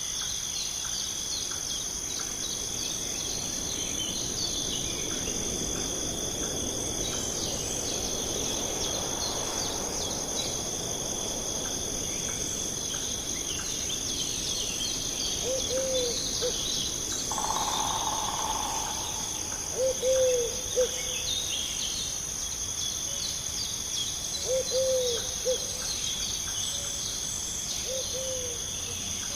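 Steady high-pitched chorus of crickets and other insects, with scattered bird chirps over it. In the second half a bird gives short low hoots in groups of two or three, four times.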